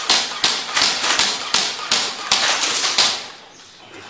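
Airsoft gun firing a quick run of single shots, about three sharp cracks a second, for roughly three seconds before stopping.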